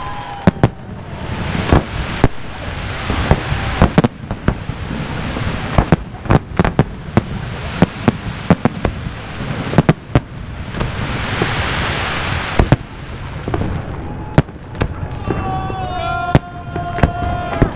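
Fireworks and firecrackers going off: many sharp bangs, at times several a second, over a continuous crackling that swells and fades. A steady high tone sounds for about two seconds near the end.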